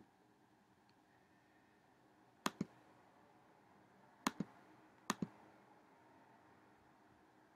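Computer mouse button clicks over faint room hiss: a single click at the start, then three quick press-and-release pairs about two and a half, four and a quarter, and five seconds in.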